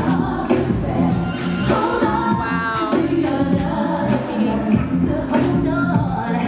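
Pop music with a singing voice and a steady drum beat.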